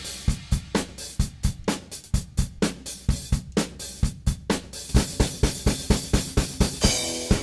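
Background music: a drum-kit beat with kick, snare and hi-hat at about four hits a second, with pitched instruments coming in near the end.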